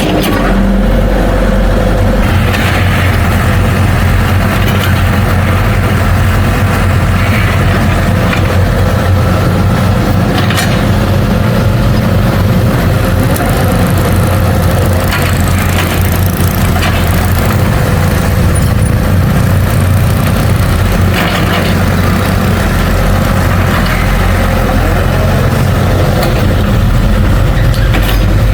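Heavy diesel engine of an earthmoving machine running steadily with a low rumble, with a few short clanks over it.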